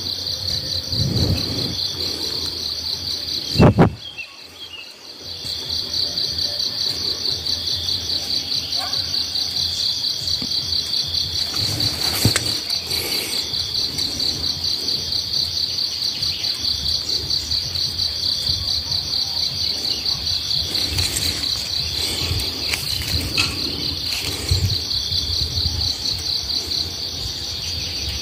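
Insects chirring in a steady, fast-pulsing high-pitched drone. About four seconds in there is one sharp, loud knock, after which the insect sound briefly drops away and then comes back.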